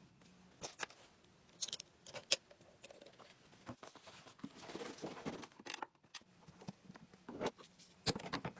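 Scattered light clicks, taps and short scrapes at irregular intervals, like small objects and hand tools being handled.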